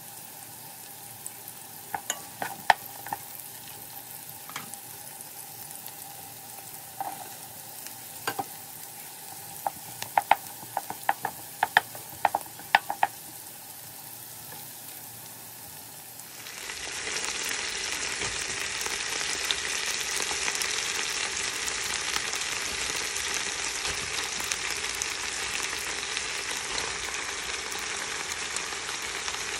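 Sliced onions and garlic frying gently in oil in a pan, with a wooden spatula clicking and scraping against the pan in short clusters. About halfway through, a much louder steady sizzle of romaine lettuce stir-frying takes over.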